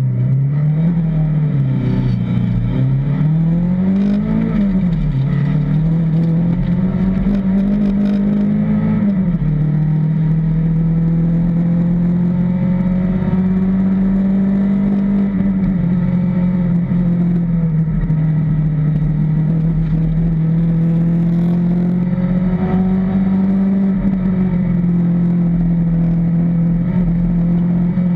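Fiat Punto rally car's engine heard from inside the cockpit, accelerating hard off the stage start: the pitch climbs and drops at each upshift, three times in the first nine seconds or so, then holds at high revs along the stage.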